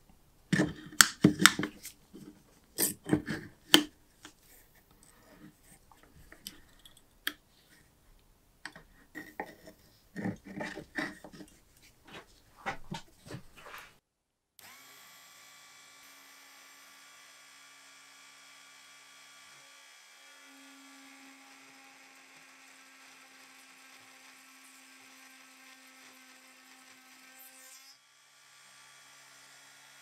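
Clicks and knocks of the wooden vise and its crank being adjusted and tightened around the lighter. About halfway through, a rotary tool in a drill-press stand starts a faint, steady whine as a small bit drills into the lighter's rusty steel body. It stops near the end.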